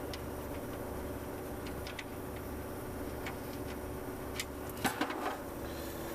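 A steady low mechanical hum, with scattered light clicks and a short burst of louder clacks and knocks about three quarters of the way through.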